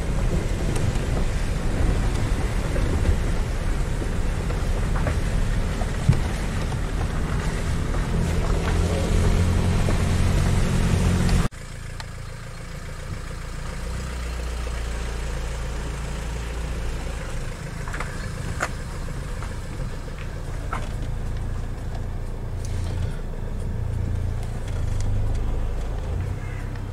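Four-wheel-drive vehicle driving slowly on a wet, muddy track, its engine running steadily under load. About eleven seconds in, the sound cuts abruptly to a quieter low rumble with a few short sharp sounds.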